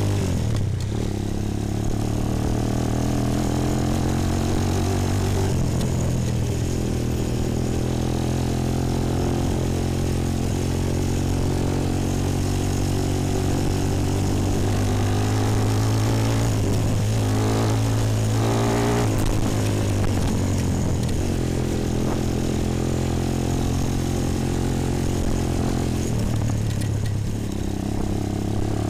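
Bashan 250 quad's engine running under way, heard from the rider's seat, with the revs dipping and climbing back several times as the throttle is eased and reopened.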